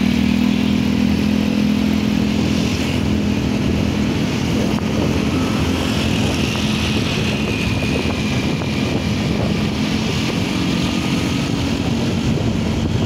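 A small motorcycle engine running steadily close by, dying away after about three seconds, over continuous wind and road noise from moving along.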